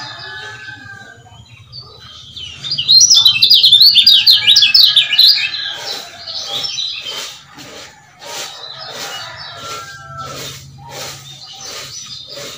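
Male kecial kuning, a yellow white-eye, singing: a loud, fast, high twittering burst about two seconds in that lasts some three seconds, then a run of sharp 'ciak' chirps at about two a second.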